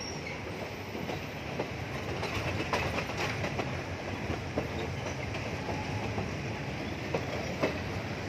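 Diesel railcar commuter train rolling past, with a steady low engine hum and its wheels clicking over rail joints and points at irregular intervals.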